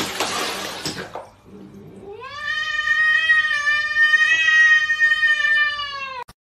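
Water splashing in a plastic basin for about a second, then one long drawn-out animal cry that rises at first and holds a steady pitch for about four seconds before cutting off suddenly.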